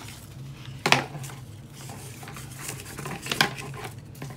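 Rear-view mirror dash cam parts being handled while digging out its mounting straps: light rustling with two sharp clacks, about a second in and again near the end, over a low steady hum.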